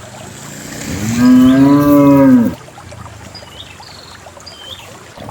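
A cow mooing once: one long, low call lasting about a second and a half, which rises slightly and falls away as it ends. Another moo starts right at the close.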